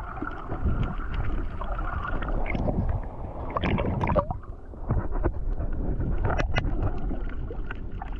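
Underwater sound picked up by an action camera in shallow sea water: a steady low rumble of moving water with scattered clicks and crackles, and louder sloshing and bubbling about four seconds in as the camera nears the surface.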